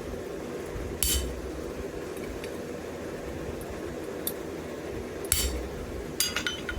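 Sparse ringing hammer blows on wrought iron and steel at the anvil: one strike about a second in, a light tap, another strike, then several quick strikes near the end, over a steady background hum.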